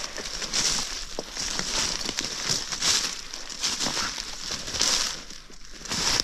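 Footsteps crunching through dry fallen leaves at a walking pace, a crackling crunch with each step.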